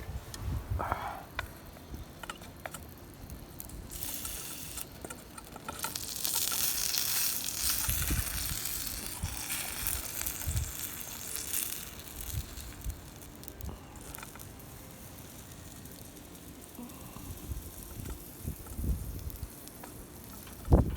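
Food sizzling over a campfire, with a hissing swell from about four to twelve seconds in, and scattered low knocks and crackles around it.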